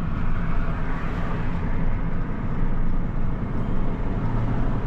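Pickup truck under way: steady low engine and road rumble heard from inside the cab.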